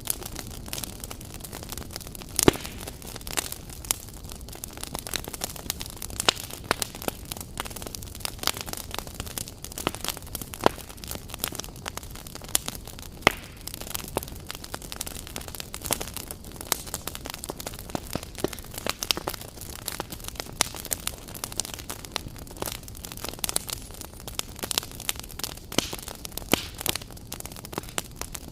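Wood campfire crackling: irregular sharp pops and snaps over a steady hiss of burning, with a loud pop about two and a half seconds in.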